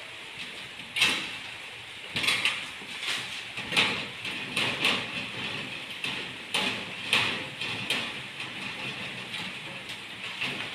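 Aluminium sliding window being worked on at its lock with a screwdriver: about a dozen sharp metal clicks and knocks at irregular intervals, over a steady hiss.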